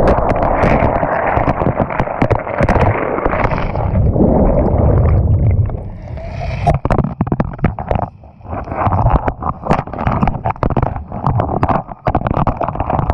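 Churning surf heard underwater: a heavy, muffled rush of a breaking wave. About six seconds in it turns rougher, with many sharp knocks and clatters as the water rolls over a bed of pebbles.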